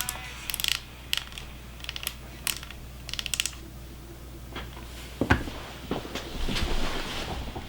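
Quick bursts of small clicks and ratcheting ticks from the plastic Astro A50 headset being handled and reassembled, followed by a few knocks and a rustle near the end.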